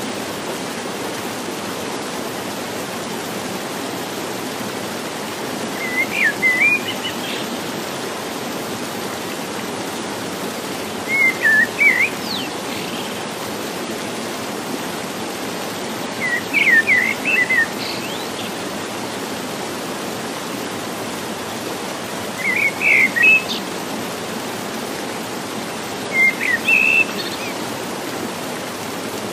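A stream rushes steadily, with short bursts of songbird chirps about every five seconds.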